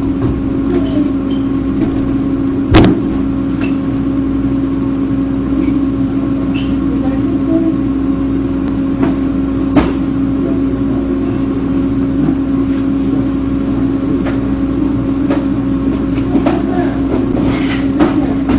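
Steady low electrical or machine hum with a fixed tone, heard through a security camera's narrow-band microphone, with one sharp knock about three seconds in and a few fainter clicks and taps later.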